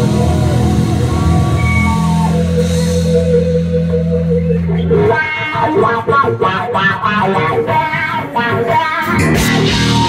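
Live rock band: electric guitar with bass and drums. Low held notes ring through the first half, then fast guitar runs over the drums take over about halfway through.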